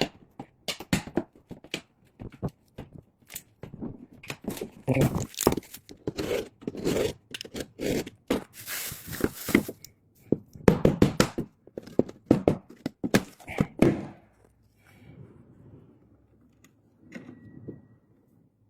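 Irregular knocks, clicks and scrapes of hand work, with a short rasping, tearing noise about nine seconds in; the sounds thin out for the last few seconds.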